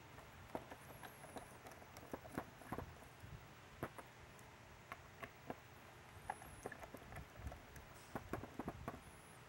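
Hand screwdriver turning out small screws from a circuit board inside a plastic housing, with light irregular clicks and taps as the driver works and the tiny screws are set down on the tabletop.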